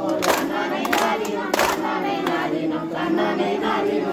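Voices singing a kummi folk song together, with sharp hand claps keeping the dance beat, about three claps every two seconds, the claps standing out most in the first half.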